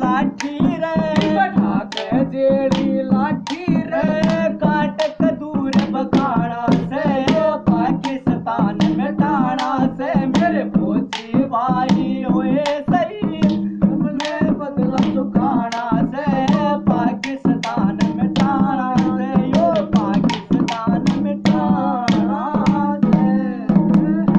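Two men singing a Haryanvi ragni folk song, accompanied by clay water pots (matkas) struck in a quick rhythm with the hands and a flat metal striker, over a steady low drone.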